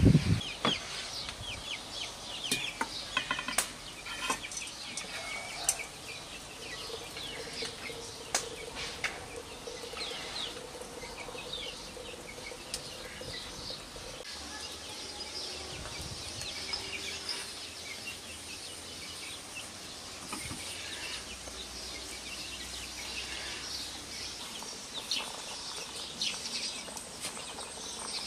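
Chickens clucking and small birds chirping throughout, with a few sharp clicks in the first ten seconds.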